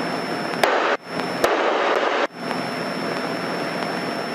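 Steady drone of a single-engine propeller airplane's engine and airflow in flight, heard through the cockpit intercom with a faint high electronic whine. The sound cuts out abruptly twice, for a fraction of a second each time, with clicks as it drops and returns.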